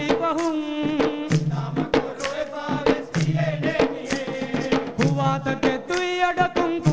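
Boduberu music: several large Maldivian boduberu hand drums beaten in a fast, driving rhythm under a man singing a chanted melody.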